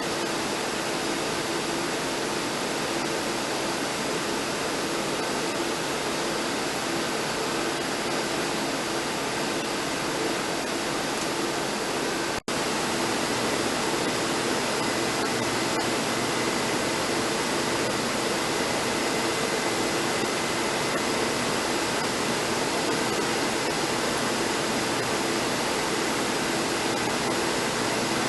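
Steady rushing noise with a faint low hum, cutting out for an instant about halfway through.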